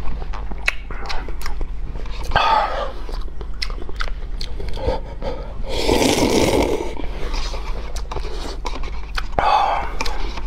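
Close-miked slurping and chewing of hot and sour noodles (suanla fen): wet, smacking mouth clicks, broken by three longer slurps about two seconds in, around six seconds in, and near the end.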